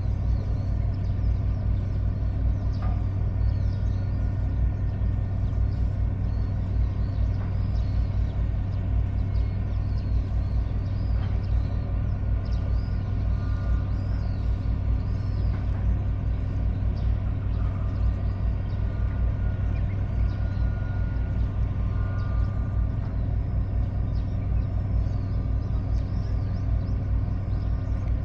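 Boat engine running steadily, a deep, even hum.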